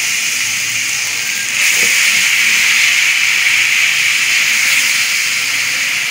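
Tomato, garlic and spice sauce sizzling steadily in a hot pan. The sizzle grows louder about one and a half seconds in and eases slightly near the end.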